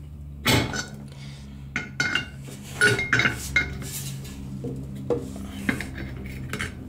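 Metal tools and tank parts clinking and clanking in several separate short strikes while the nut on a hydropneumatic tank's valve is loosened.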